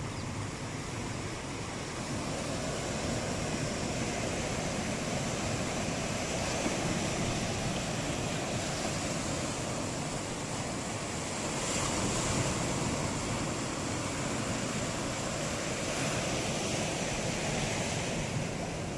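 Sea surf breaking and washing up over sand and rocks, a steady wash of noise that swells a little as waves come in.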